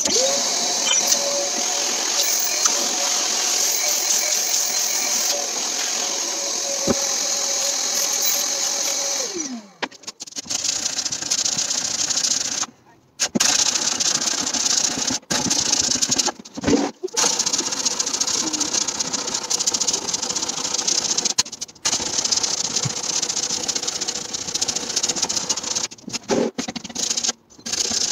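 Electric detail sander running against the wooden top of a cabinet, a steady motor buzz with a scrubbing rasp. About nine seconds in the motor winds down, then the sanding comes back in stretches broken by a few brief silences.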